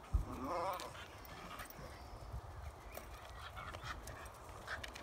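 Small terrier jumping again and again at a rope swing: irregular thuds and light knocks of its paws landing on dry dirt, the loudest thud just after the start. A short wavering dog vocalisation comes in the first second.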